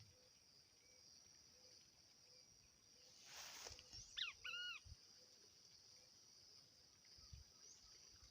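Two quick bird calls about four seconds in, just after a brief rustle, over steady high-pitched insect buzzing in a quiet rural setting.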